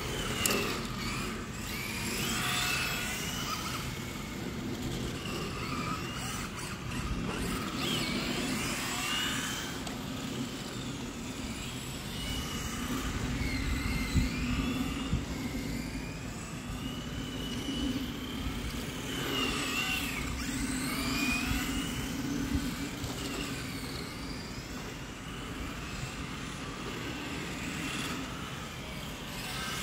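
Several 1/10-scale Tamiya TT-02 electric touring cars racing, their motor and gear whine rising and falling again and again as they speed up and brake. A single sharp knock about halfway through.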